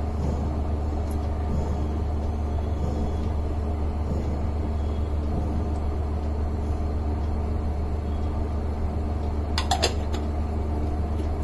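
Steady low hum of a small motor or fan running, with an even rushing noise over it.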